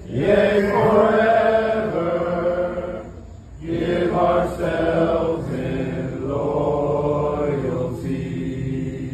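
A crowd of voices singing a slow hymn together in long held notes, phrase by phrase, with a short breath between phrases about three seconds in.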